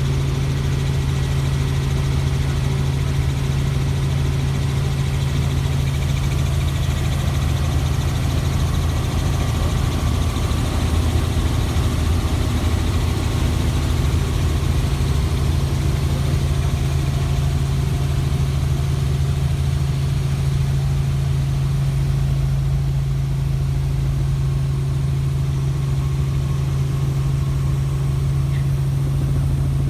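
Helicopter running, a steady low drone with a strong constant hum that holds the same pitch throughout.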